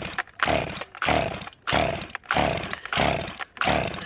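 An old Stihl chainsaw being pull-started: the recoil starter cord is yanked about seven times in quick succession, and each pull gives a rasping whir as the engine turns over. The engine does not fire or catch: the saw is hard to start despite starting fluid.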